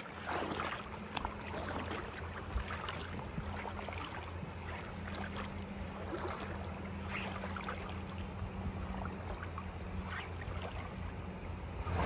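River water running steadily over a shallow tailwater, with a low steady hum underneath and a few faint clicks.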